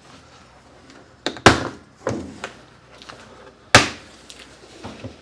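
Plastic latch tabs on a Whirlpool Cabrio washing machine's tub top section being popped loose by hand: a handful of sharp snaps and knocks, the loudest about a second and a half in and again just before four seconds.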